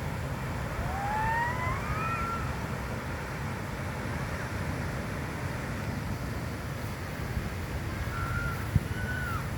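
Steady wind and surf noise on the microphone at the shore. About a second in, one rising high call glides upward over about a second and a half, and two short high calls follow near the end.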